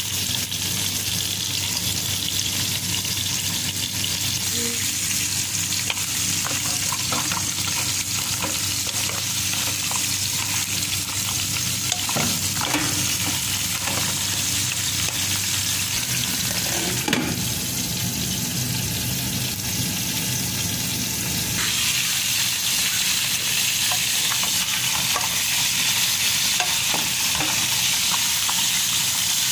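Steady sizzling hiss from a hot pot of raw crabs and chopped onions, with a few knocks and scrapes as a wooden spatula turns the crab shells against the pot. The hiss gets a little louder about two-thirds of the way through.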